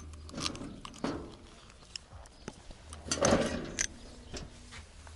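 A key turning in a heavy old padlock, with metal clicks and short scrapes, then a louder rattling scrape about three seconds in as the padlock is worked off the hasp of a steel gate.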